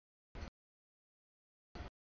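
Passing freight train heard only in short, cut-off bursts of rumble about once a second, with dead silence between them: the audio drops in and out.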